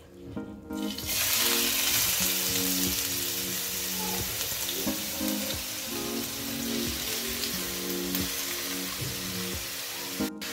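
Finely chopped onion sizzling in hot oil in a frying pan: the sizzle starts about a second in as the onion goes into the oil, and keeps up steadily.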